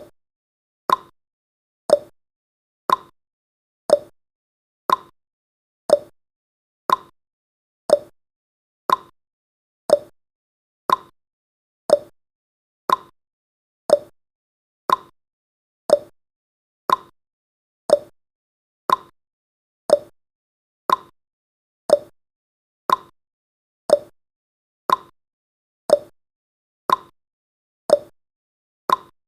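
Countdown timer's clock-tick sound effect: one short, sharp tick every second, evenly spaced, with silence between ticks.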